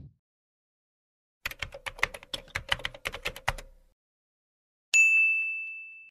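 Computer keyboard typing sound effect: a quick run of keystrokes, about ten a second, for about two seconds, as a web address is typed on screen. About a second later comes a single bright ding that rings and fades.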